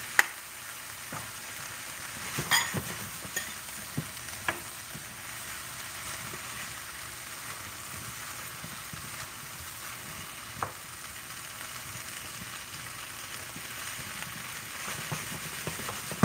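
Stir-fried vegetables, saltfish and shrimp sizzling steadily in a nonstick pan. A few scattered clicks of a silicone spatula against the pan, with quick stirring knocks starting near the end.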